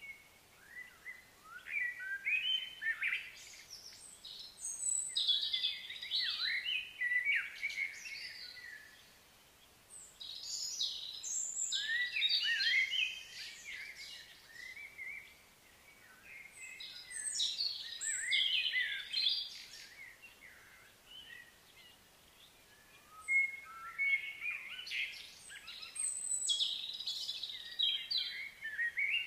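Small songbirds singing: about five bursts of quick, high, chattering notes, each a few seconds long, with short pauses between them.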